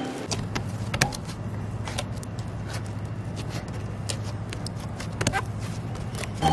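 Scattered small clicks and taps of handling over a steady low hum.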